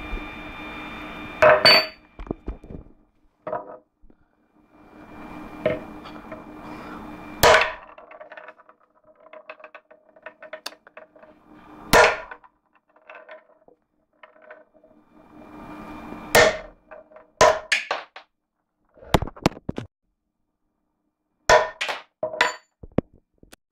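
A hammer strikes a nut on a wooden board again and again with sharp knocks at uneven intervals, coming in quick runs in the second half. The nut is not cracked.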